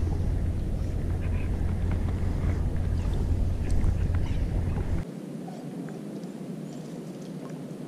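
Low rumble of wind buffeting the camera's microphone, which cuts off abruptly about five seconds in and leaves a quieter hiss. Faint clicks and rustles of the angler handling rod and line sit over it.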